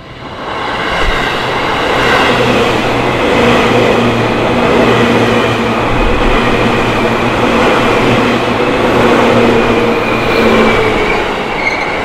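Seibu Shinjuku Line commuter train passing over a level crossing: a loud, steady rush of wheels on rail that builds over the first second or two and starts to fade near the end.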